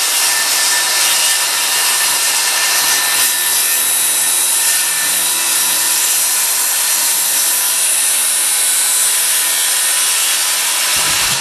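Power saw cutting through wood in one long, steady cut.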